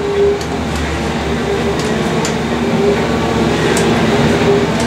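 Container crane's hoist machinery running as the spreader is lowered onto a container, heard from inside the operator's cab: a steady mechanical hum with a whining motor tone and a few faint ticks.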